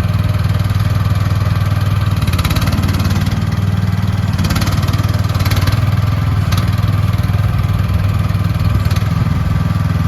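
Gas engine of an AGT QH12R mini excavator running at a steady speed, with several short bursts of higher-pitched noise over it.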